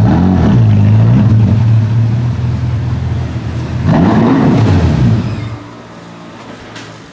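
A Ferrari's engine running at idle and revved: a short blip just after the start and a bigger rev that rises and falls about four seconds in. Then it drops to a much quieter idle about five and a half seconds in.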